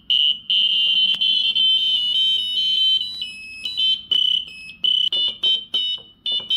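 Piezo buzzer of a homemade Arduino-based stylophone beeping out a run of short, high-pitched notes as a stylus touches the keys, the pitch stepping from note to note and the notes coming quicker near the end. It sounds weird because the notes were programmed in backwards and some of them are missing.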